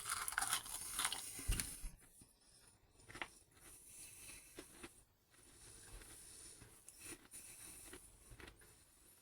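A person biting into and chewing a chocolate crackle, puffed rice set in chocolate and coconut. The crunching is loudest in the first couple of seconds, then gives way to quieter chewing with occasional crisp crunches.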